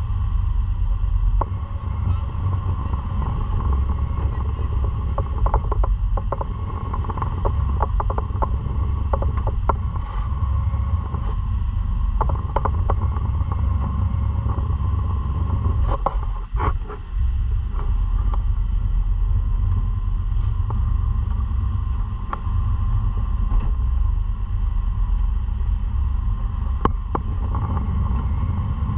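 Jet boat running: a steady low rumble under the ride, with scattered short knocks, a cluster of them in the middle and one sharp knock near the end.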